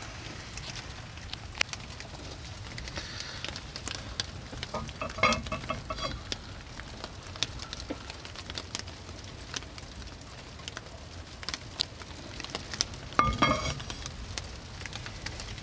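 Small wood stove burning with a freshly added log, the fire crackling and popping with a steady draft rumble, and rain pattering on the cabin. Two louder ringing metal clanks, about five seconds in and near the end.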